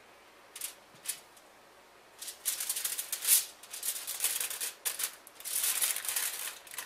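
Aluminium foil being crinkled and folded by hand to wrap potatoes: a couple of light clicks, then from about two seconds in, runs of crackling rustles.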